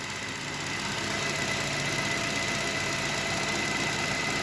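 Chevrolet Cobalt's 1.5-litre B15D2 four-cylinder engine idling steadily and running cleanly, its belts and tensioner and idler pulleys freshly replaced. A faint steady high tone runs through it.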